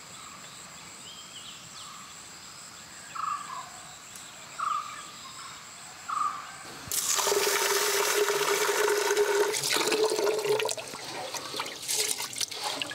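Water pouring into a metal pot of raw rice, then hands swishing and sloshing the rice in the water to wash it. Before the water, three short high chirps sound about a second and a half apart.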